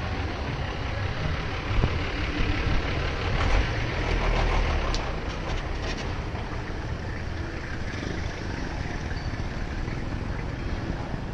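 Road traffic: a heavy tanker truck's engine rumbles as it drives past close by, then a four-wheel-drive vehicle passes, with the low rumble easing after about five seconds.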